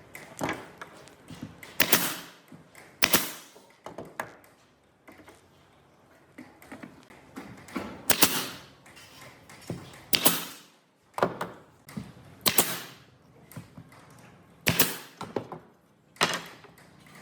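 Irregular sharp knocks and taps of wood being worked or handled, about nine louder ones spaced a second or two apart, with quieter taps and scraping between.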